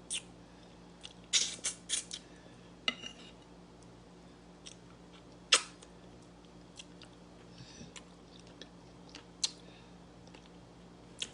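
Close-miked eating sounds from picking at and chewing stewed fish-head meat: scattered wet mouth clicks and smacks, with a cluster a little over a second in and the loudest about five and a half seconds in.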